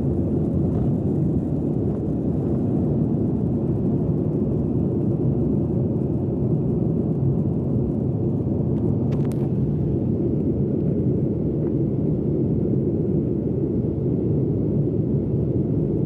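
Jet airliner's engines heard from inside the passenger cabin during the climb just after takeoff: a steady, loud low rumble, with a brief faint click about nine seconds in.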